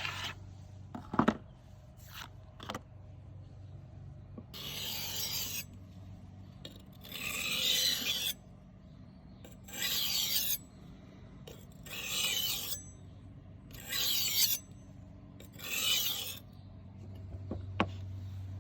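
A knife blade drawn across a Diamantleder Essential diamond sharpening strop: six slow, even rasping strokes, about one every two seconds. A few sharp clicks come before the strokes and one after them.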